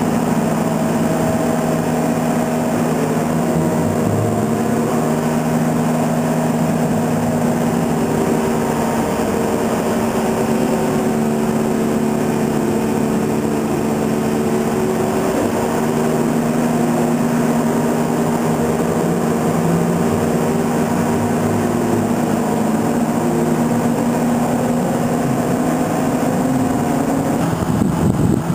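Motor-generator set of a Škoda 14Tr trolleybus running, a steady humming drone with several held tones. Near the end it gives way to street noise.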